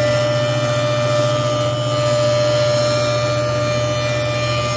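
A jointer cutting the edge of a pine board. The machine runs with a steady hum and a high whine, under the steady noise of the cutterhead knives planing the wood.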